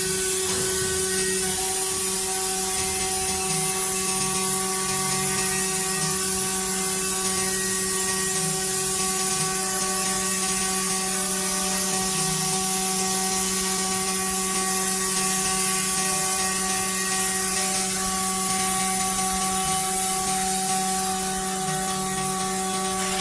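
Six-sided CNC drilling machine running: a steady high-pitched spindle whine over a constant machine hum, easing slightly near the end.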